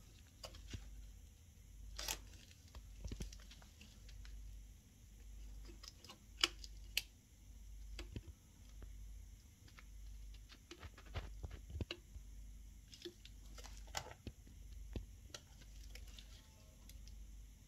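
Scattered light clicks, taps and crinkles of adhesive tape being peeled and repositioned on a TV panel by hand, over a low hum.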